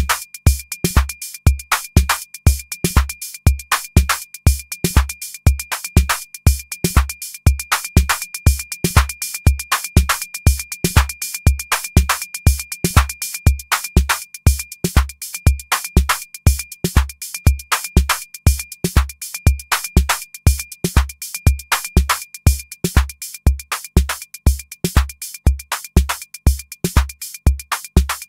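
Looping electronic drum-machine pattern driven over MIDI by a prototype step sequencer: a deep kick about twice a second under rapid clicky hi-hat hits, with a thin steady high tone underneath. The accents on the steps are being deleted and muted, so some hits change in loudness.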